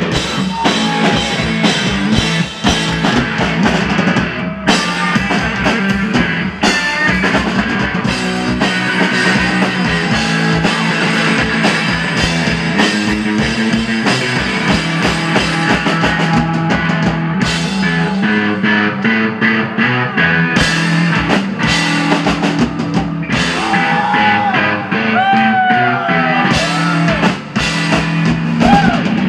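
Live rock from a guitar-and-drums duo: an electric guitar and a drum kit played loud together, with the drums beating steadily throughout.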